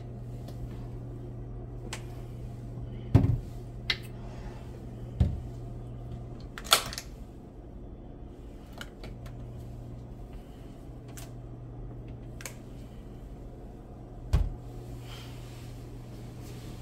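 Wooden kitchen cabinet doors being opened and shut: several sharp knocks and clacks, most in the first seven seconds and one more near the end, over a steady low hum.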